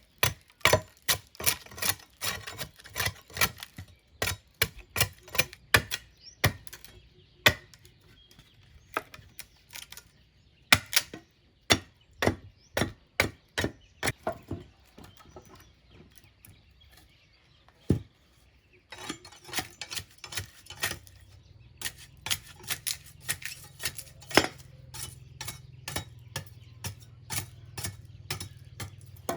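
Tool blows on wood as a dog house is built: a long run of sharp knocks, several a second, broken by a couple of short pauses. A low steady hum comes in for roughly the second half.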